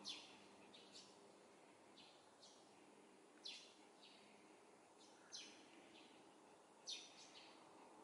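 Eurasian tree sparrow giving faint, short chirps that fall in pitch, one every second or so and sometimes two in quick succession, over a steady low background hiss.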